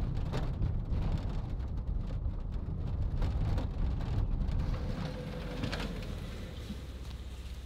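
Mercedes estate car driving over a rough dirt and gravel track: a low rumble of engine and road with a crackle of stones under the tyres, dying down near the end.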